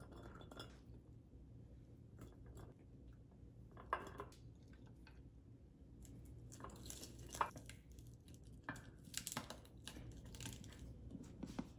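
Sliced cucumbers, carrots, jalapeños and cabbage being dropped and pressed by hand into glass mason jars: faint crunching and rustling of the raw vegetables, with scattered sharp clicks, the loudest about four and seven seconds in.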